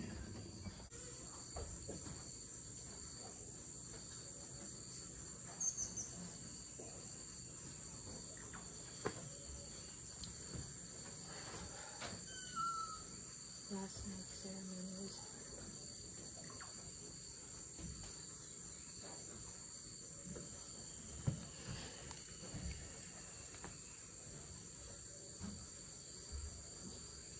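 Steady, high-pitched chorus of forest insects, a continuous shrill trill, with a few soft knocks of movement.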